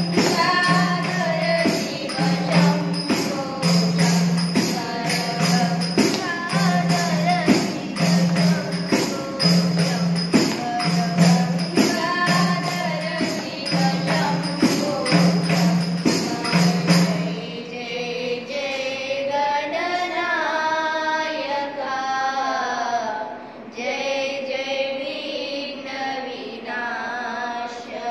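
Devotional song with a sung voice over a steady jingling tambourine beat and a low pulsing drone. About two-thirds of the way through, the tambourine and drone drop out and the voice carries on alone in a chant-like line.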